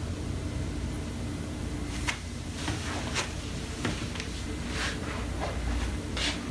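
Soft footsteps and handling knocks, about one every two-thirds of a second from about two seconds in, over a low rumble on the microphone, as a handheld phone camera is carried through a small room.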